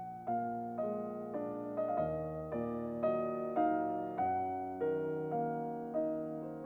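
Background piano music: a slow, gentle melody of single notes, each struck about twice a second and left to ring and fade.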